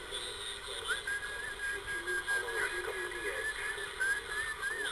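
President HR2510 radio receiving on 27.555 MHz upper sideband: a whistle tone holding nearly one pitch with slight wavers, starting about a second in and lasting about four seconds, over steady static hiss.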